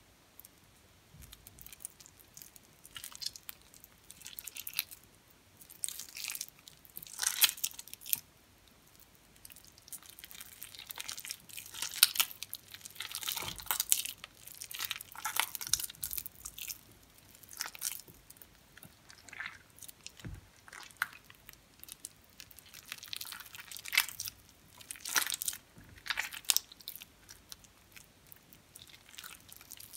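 Hands squeezing and breaking apart a ball of water-soaked, mushy recycled soap scraps: irregular wet squishing and crackling, coming in bouts a second or two long, starting about a second in.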